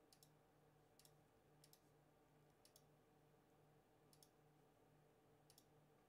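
Near silence with faint computer mouse clicks, about six of them, several in quick pairs.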